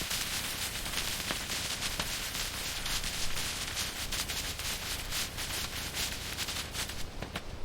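Steady crackling hiss, dotted with many sharp clicks and pops.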